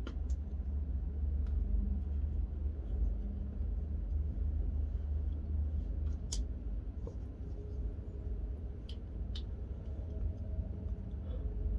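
Low wind rumble buffeting the microphone from a draft blowing through a small cave, with a few scattered sharp clicks, the loudest about six seconds in.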